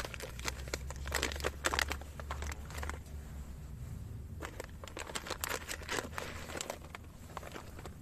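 Kraft-paper coffee bag crinkling and rustling in short crackly spells as it is handled and opened by hand.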